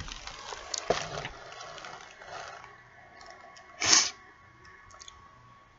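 Rustling and a bump as the camera is handled close up. About four seconds in comes one short, loud puff of air from pursed lips held right at the microphone.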